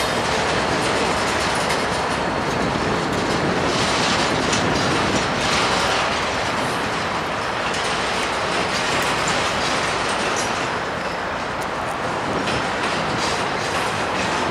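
Double-stack intermodal container cars of a freight train rolling past: a steady noise of steel wheels on rails with frequent sharp clicks.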